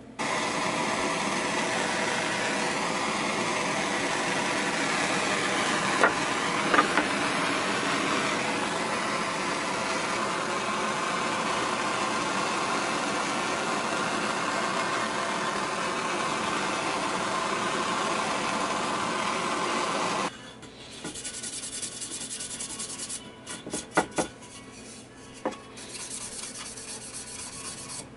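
Gas blowtorch running steadily, scorching a cedar board, until it cuts off suddenly about twenty seconds in. A few sharp knocks of the wood being handled follow, then soft rubbing on the charred wood.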